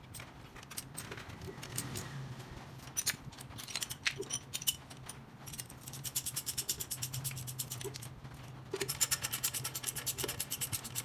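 Ratchet wrench clicking as a socket on a long extension runs bolts down into an engine block: scattered single clicks at first, then two long runs of fast, even clicking in the second half. A steady low hum lies underneath.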